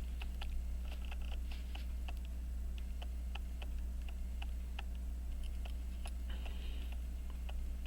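Small, irregular metallic clicks of watch parts and hand tools being handled while a pocket-watch plate is fitted, over a steady low electrical hum.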